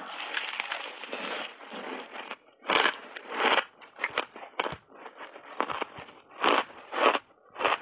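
A big mouthful of crunchy refrozen blended shaved ice being bitten and chewed: a dense grinding crunch for the first two seconds or so, then separate crunches about once or twice a second as the ice is chewed.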